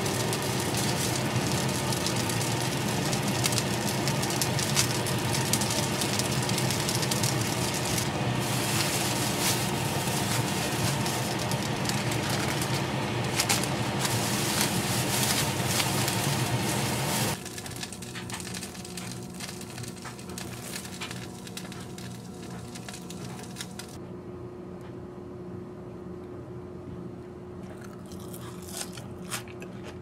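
Crinkling and rustling of a clear plastic bag and parchment paper as stacked pancakes are handled and packed, with a steady hum underneath. The sound drops suddenly to a quieter level about 17 seconds in, leaving sparse crackles.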